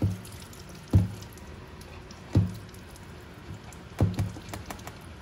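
A colander of sweated squash and onions being knocked and jostled as it drains: a few irregular sharp knocks, each with a short low ring, and lighter clicks between them.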